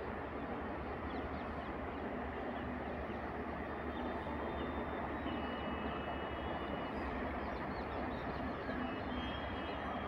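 Steady outdoor background rumble and hiss, with faint high-pitched small-bird chirps and a few thin, held whistles in the second half.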